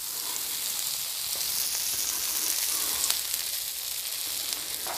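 Brussels sprouts sizzling in bacon grease on a Blackstone steel flat-top griddle: a steady frying hiss, with a few light clicks as a metal scraper pushes them across the griddle.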